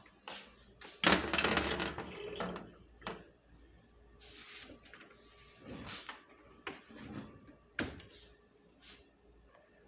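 Kitchen handling sounds as a glass baking dish is moved and set down on the grates of a gas stove: a loud stretch of clatter and rubbing about a second in, then scattered short knocks and clunks.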